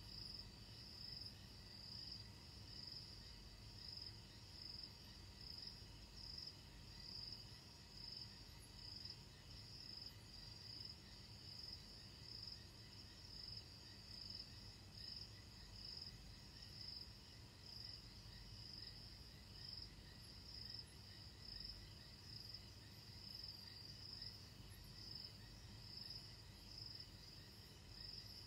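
Faint chorus of night insects chirping: a steady high-pitched trill that pulses about once a second, over a low rumble.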